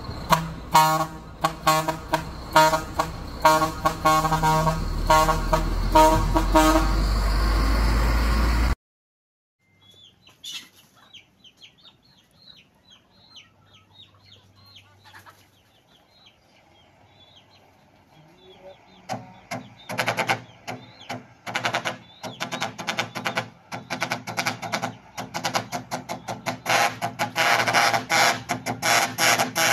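Electronic background music with a steady beat that cuts off suddenly about nine seconds in. Then come faint short chirps, and from about twenty seconds a loud, dense clattering over a steady low hum.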